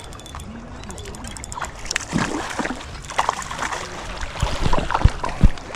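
Water splashing and sloshing irregularly at the shore, with a few heavy knocks near the end.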